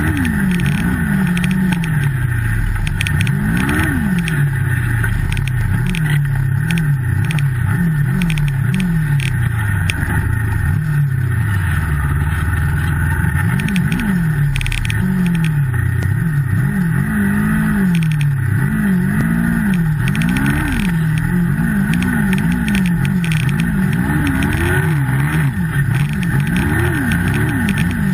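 Turbocharged Yamaha Multi Purpose snowmobile engine running under way, its revs rising and falling again and again as the throttle is opened and eased.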